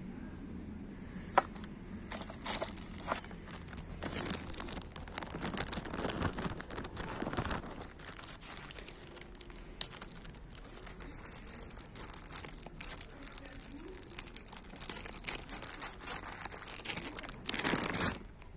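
Clear plastic zip bag crinkling and rustling as it is handled, with sharp clicks now and then; loudest near the end.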